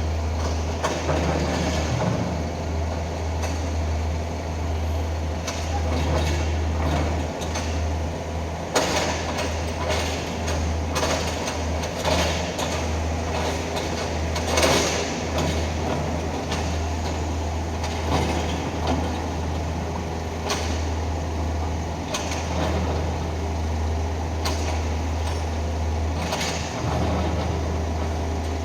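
Mini excavator engine running steadily under a low drone, with repeated scrapes and knocks from the bucket working sand on a concrete road, the loudest about halfway.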